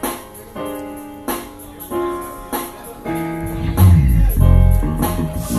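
Live band playing: keyboard chords struck about every half second or so, with a loud low bass line coming in about three seconds in.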